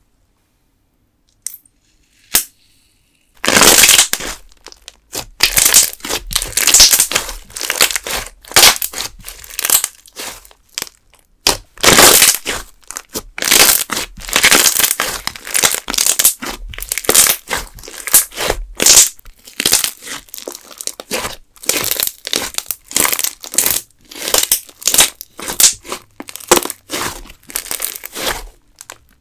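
Clear green slime with cube-shaped pieces mixed in, worked by hand: stretched, squeezed and poked, giving dense, irregular crackling, popping and squishing. After a nearly quiet start the crackling begins about three and a half seconds in and keeps on in uneven bursts.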